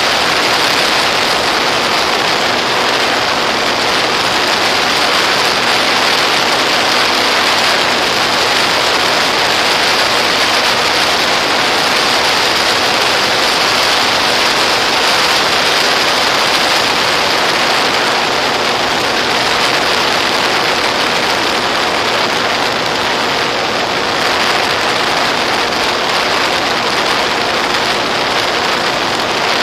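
Steady rushing noise of a Volantex Ranger EX RC plane in flight, heard on its onboard FPV audio: air rushing past, with a faint steady hum from the electric motor and propeller.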